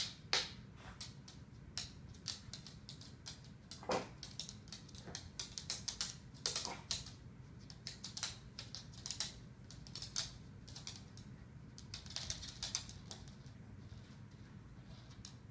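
Yorkshire terrier eating dry kibble off a hardwood floor: irregular clicks and clatters of kibble pieces and claws on the wood, mixed with chewing crunches.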